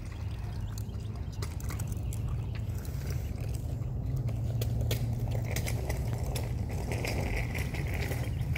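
A child's balance bike rolling slowly over a concrete driveway, with small irregular clicks and scuffs from the wheels and shoes over a steady low rumble.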